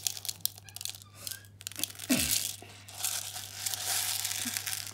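Hands sifting and scooping small plastic bean bag filling pellets in a plastic bowl: a rustle of many pellets clicking against each other and the bowl, scattered at first and denser from about two seconds in.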